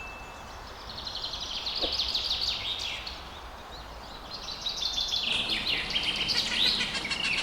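Small bird chirping in rapid runs of short, quick falling notes, in two bouts; the second starts about four and a half seconds in. A steady low background noise lies underneath.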